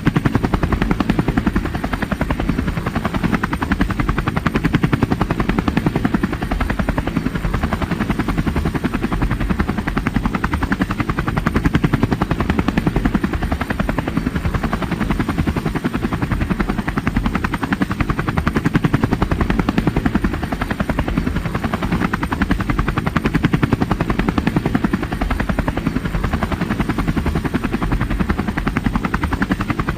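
Helicopter in flight: rapid, steady rotor-blade chopping over the turbine's noise, unchanging in pitch and level.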